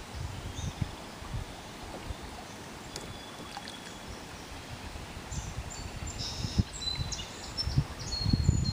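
Outdoor river ambience: a faint wash of moving water, with wind rumbling on the microphone at the start and again near the end. From about halfway, birds give short, high whistled notes at several different pitches.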